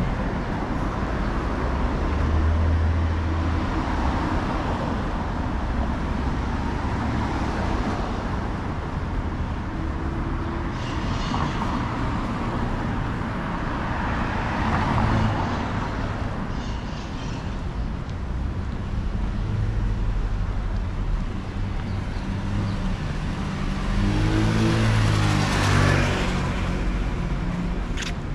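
City street traffic: a steady wash of passing cars, with a heavier vehicle's engine rumble louder near the end and a brief sharp click just before it stops.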